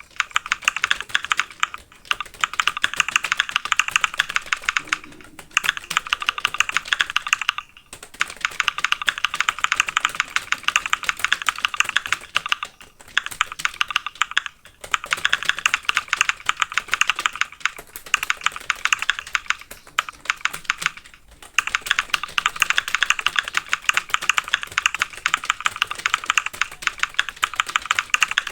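Fast typing on a computer keyboard: rapid, continuous key clicks in long runs, broken by a few brief pauses.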